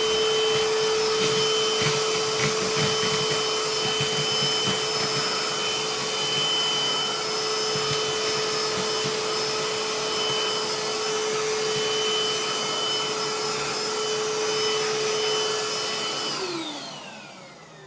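Ridgid 18-volt brushless cordless wet/dry handheld vacuum running steadily with a high whine, on a battery that is not fully charged. Small chips tick and rattle as they are sucked in. Near the end the motor is switched off and winds down with falling pitch.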